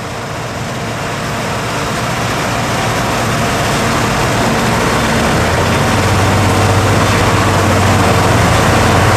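John Deere Titan series combine's diesel engine and threshing machinery running while harvesting corn, a steady heavy drone that grows gradually louder as the machine draws closer.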